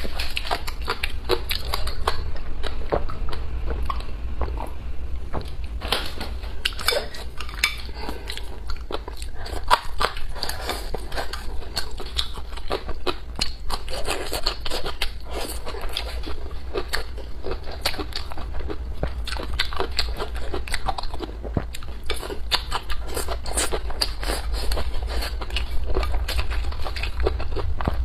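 Close-miked chewing and biting of food, with many small crunches and clicks coming irregularly throughout, over a steady low hum.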